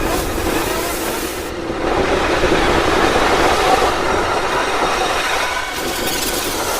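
Loud, steady metallic drone with faint wavering tones running through it, the kind of recording circulated as an unexplained 'strange sound in the sky'.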